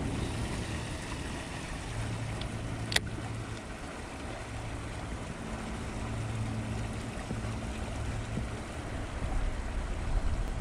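Steady low rumble of outdoor background noise with a faint even hiss, and one sharp click about three seconds in.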